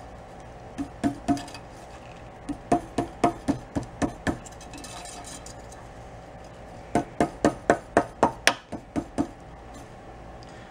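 Quick light metallic taps on the stainless steel locking ties holding heat wrap onto an exhaust pipe, in three bursts: a few taps, then about eight, then about ten, each with a short ring.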